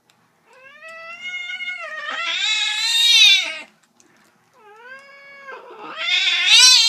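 Eight-month-old cat yowling in protest at being held for a claw trim: two long yowls, the first starting about half a second in and swelling louder, the second starting near the middle and running on past the end.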